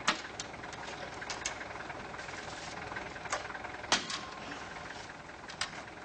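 A car engine idling steadily, with a few short sharp clicks scattered through it.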